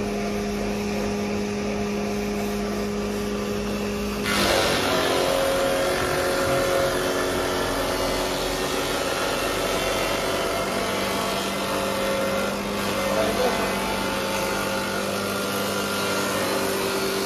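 Combination woodworking machine with its motor running with a steady hum; about four seconds in, a wooden board is fed through its cutter and a louder, rough cutting noise starts suddenly and carries on as the board passes through.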